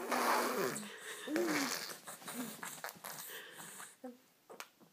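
A stuffed-up baby, almost four months old, blowing raspberries: a long buzzing lip burst with his voice sliding down through it in the first second, then a shorter one with a rising-and-falling squeak, and smaller lip and breath noises after.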